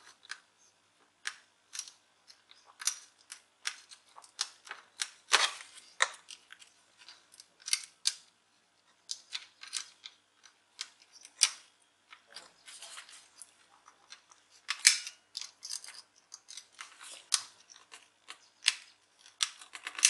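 Irregular small clicks and light scrapes of plastic and thin sheet metal as a slim laptop DVD drive is handled and worked by hand.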